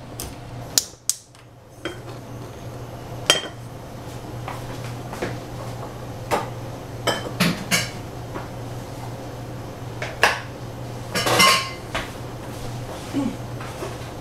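Kitchenware being handled: scattered clinks and knocks of dishes and cutlery, a dozen or so, with the loudest, briefly ringing cluster about eleven seconds in, over a steady low hum.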